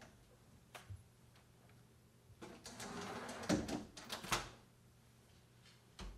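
A stacked front-loading laundry machine being unloaded: a couple of light clicks, then about two seconds of rustling fabric with sharp clicks and knocks from the machine's door and drum, and one more knock near the end.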